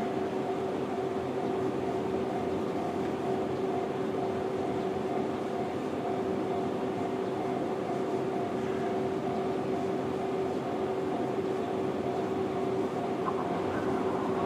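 JR-standard electronic level-crossing alarm ringing steadily, two held tones, over the running noise of a JR 211-series electric train passing over the crossing.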